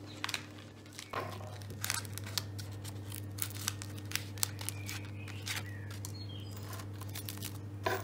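A knife cutting through crisp toast around a paper template: scattered small crunches and scrapes of the blade through the crust. A low steady hum starts about a second in.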